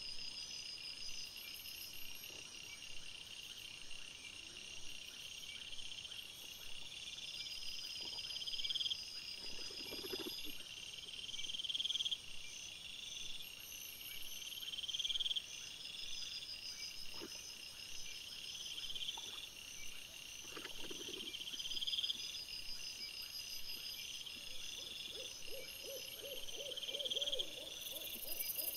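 Night insects chirping in a steady pattern, short high chirps repeating about every second and a half, in trail-camera audio played at four times speed. A few short low sounds break in, and near the end comes a quick run of low pulses.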